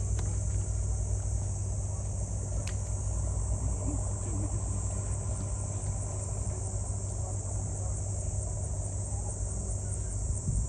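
Insects, crickets or cicadas, shrilling steadily in a high, even drone over a constant low rumble.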